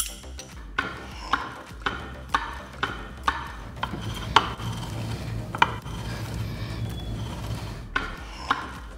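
Ford 9-inch ring and pinion gears turned over by hand to roll a contact pattern in the marking paint: a dry rubbing mesh with a sharp click about twice a second.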